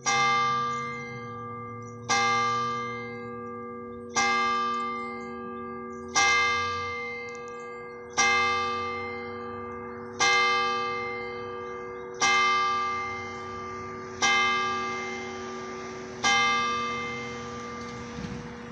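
A single church bell tolling: nine strikes of the same pitch about two seconds apart, each ringing on and fading slowly. After the last strike the bell's hum dies away.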